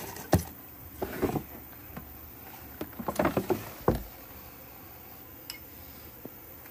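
Plastic reptile rack tub being handled: a sharp knock, scraping and clattering, and a heavy thump about four seconds in, then only a few faint ticks.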